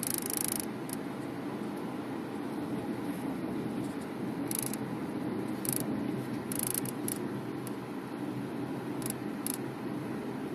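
Cabin noise of a 2013 Subaru Forester driving, with short, high-pitched, cicada-like buzzing from the sunroof coming and going at irregular intervals. The owner suspects the sunroof's wind deflector is vibrating with the body when retracted.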